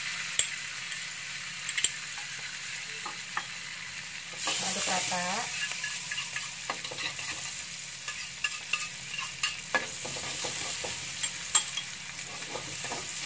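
Minced garlic sizzling in oil and butter in a wok as it is sautéed until fragrant, with scattered clicks and scrapes of the spatula against the pan as it is stirred. The sizzle swells for a couple of seconds, about four and a half seconds in.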